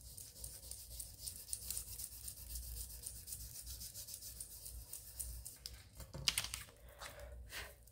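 An index card rubbed rapidly back and forth under the fingertips over a sheet of polymer clay, a faint rhythmic scratchy hiss as the surface is burnished in. A few louder strokes come near the end.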